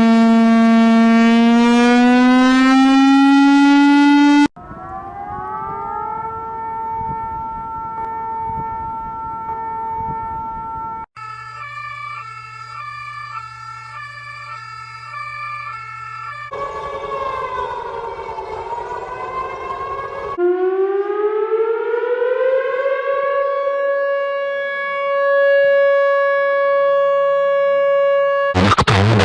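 A series of synthesized emergency-alert alarm tones, changing every few seconds: a siren-like tone rising slowly in pitch, then a tone that rises and holds, a warbling pattern of alternating tones over a low hum, tones gliding up and down across each other, and a tone that rises and levels off. A burst of loud static comes near the end.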